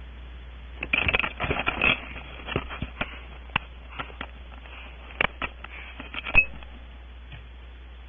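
Barn owl moving in its wooden nest cavity: an irregular run of sharp clicks and scrapes, densest in the first two seconds, with a short high squeak near the end.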